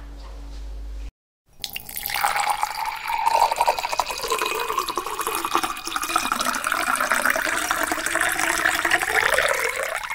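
Splashing, pouring liquid sound effect: a dense watery rush that starts about a second and a half in, rises slightly in pitch as it goes on, and cuts off at the end. Before it there is a moment of low room hum, then a brief silence.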